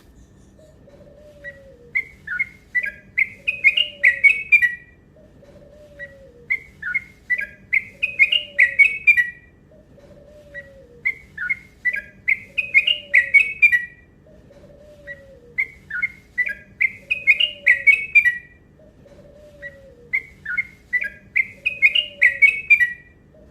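Yellow-vented bulbul (trucuk) song: the same rapid, rolling phrase of short chirping notes, climbing and quickening before it stops, repeated five times about every four and a half seconds. A faint low falling note repeats about once a second underneath.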